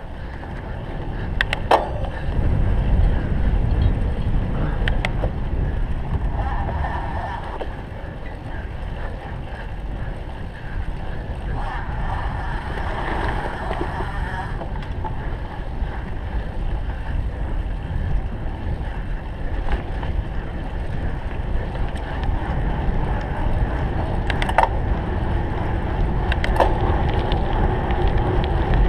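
Wind rumbling on the microphone while riding a cyclocross bike over rough ground, with steady tyre and frame rattle and a few sharp clicks.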